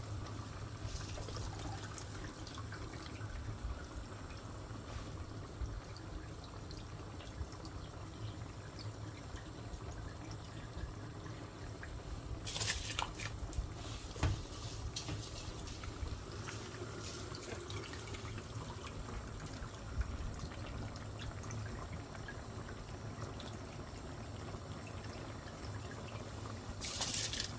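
Liquid trickling and pouring in a cooking pot over a steady low hum, with two short hissing bursts, one about halfway through and one near the end.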